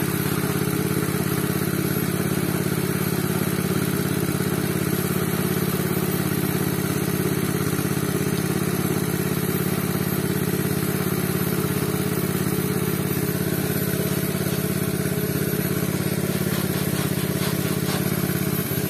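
Small Robin petrol engine running steadily at an even speed, driving the pepper-washing machine.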